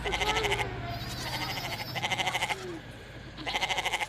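Livestock bleating: three loud, quavering bleats, one at the start, one about two seconds in and one near the end.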